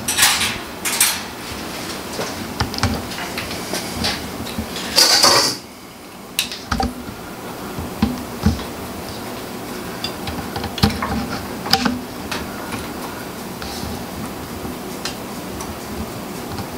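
Metal clinks, clicks and knocks as the steel vise of a metal-cutting chop saw is worked on with a hand tool. There is a brief louder rasp about five seconds in.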